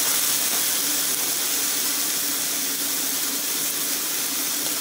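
Pork spareribs, onion and garlic sizzling in a hot wok, the splash of added water hissing off as steam; a steady, even hiss with a faint steady hum underneath.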